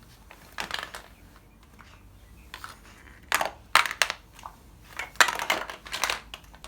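Bare feet stepping on a layer of loose plastic Mega Bloks, the blocks clacking and shifting against each other underfoot. There are a few clusters of clatter: one about half a second in, one around three to four seconds in, and a longer one after five seconds.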